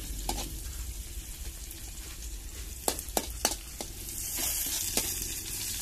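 Chopped onion, tomato and green chilies sizzling as they are stir-fried in a metal wok, a metal spatula scraping the pan and knocking against it, with three quick knocks about three seconds in. The sizzle grows louder near the end.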